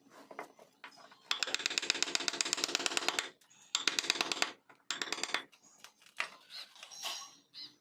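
Bursts of rapid tapping from wood carving work, well over ten strikes a second, each burst lasting from half a second to about two seconds with short gaps between.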